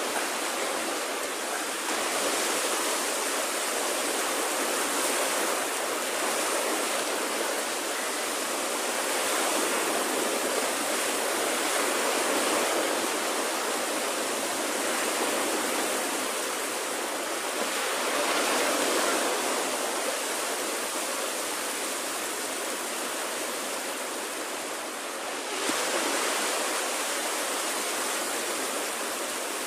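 Small waves breaking and washing up a sandy beach: a steady rushing hiss of surf that swells and eases every few seconds.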